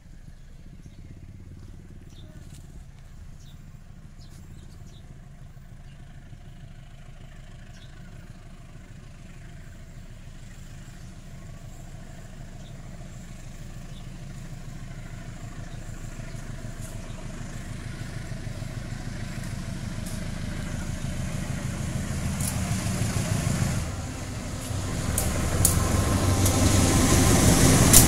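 Diesel-electric locomotive hauling a passenger train, approaching with its engine running in a low drone that grows steadily louder until it passes close near the end. Sharp clicks of the wheels on the rails come in over the last few seconds.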